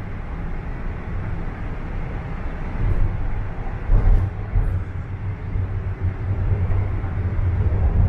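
Toronto Rocket subway train running between stations, heard from inside the car: a steady low rumble with a few brief knocks about three to five seconds in.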